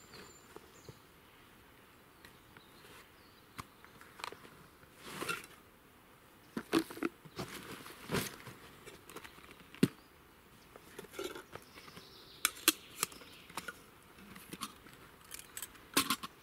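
Gear being taken out of a Wisport Zipperfox 40 l backpack: scattered rustles, clicks and knocks as items are pulled out and set down. The sharpest knocks come in the middle, with a quick cluster of clicks near the end.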